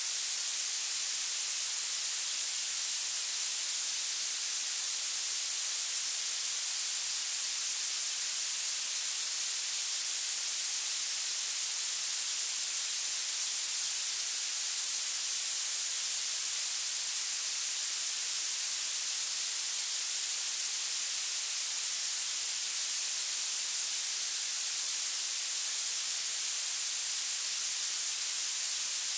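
Violet noise: a steady, unchanging synthetic hiss whose loudness climbs with pitch, sitting almost entirely in the highest frequencies with hardly any low end.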